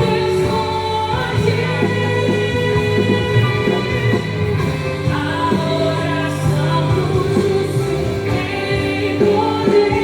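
Christian worship song with sung vocals over sustained instrumental backing, playing steadily.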